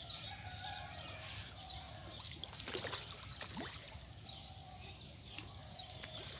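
Small birds chirping in short, high, repeated notes over a steady low rumble, with scattered light rustles and clicks, busiest about halfway through.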